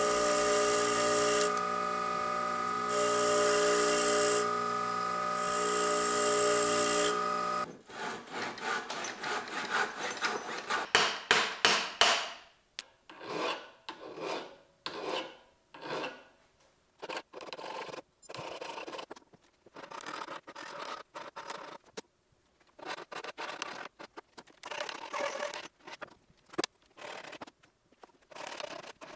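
A bench grinder runs for the first seven seconds or so, with its steady motor whine and a hiss that swells each time the steel knife is pressed to the spinning wheel. It stops abruptly, and a hand file then rasps across the steel blade clamped in a vise. The file strokes come quickly at first, then more sparsely.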